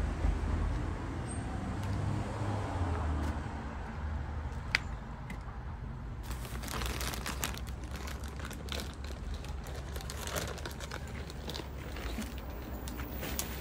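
Plastic sack crinkling and crackling from about six seconds in, over a steady low rumble.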